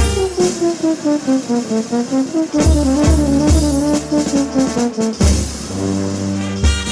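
Brass band playing marinera dance music: a melody falls step by step, then bounces over strong bass beats, and the band settles into held chords near the end.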